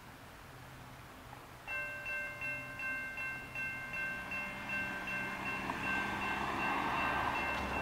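Railroad grade-crossing warning bell starts ringing about two seconds in, a quick run of bright dings about three a second, signalling an approaching train. A car passes over the crossing near the end.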